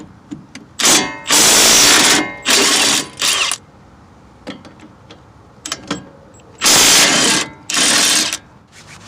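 A power wrench on a 21 mm socket loosening the two front brake caliper bracket bolts, in loud bursts of about half a second to a second: four in the first three and a half seconds, then two more near the end, with a few small clicks in between.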